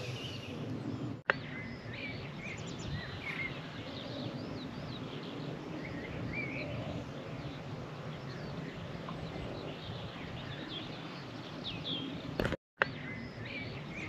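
Small songbirds chirping and warbling here and there over a steady outdoor background hiss, with a single sharp click about a second in and a brief cut to silence near the end.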